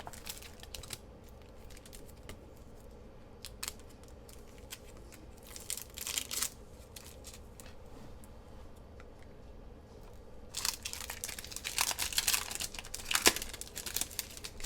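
Packaging being handled and opened by hand: scattered light clicks and rustles, a short crinkle about six seconds in, then several seconds of continuous crinkling and tearing near the end.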